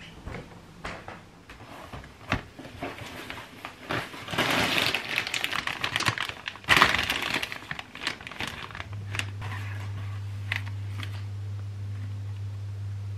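Plastic grocery packaging crinkling and rustling as items are unpacked and set down on a counter, with scattered clicks and one sharp knock in the middle. A low steady hum comes in about two-thirds of the way through.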